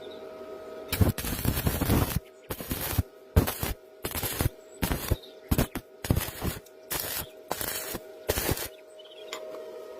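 Electric arc welding crackling in a string of short, irregular bursts, each under about a second, starting and stopping as each weld is struck. A faint steady hum runs underneath.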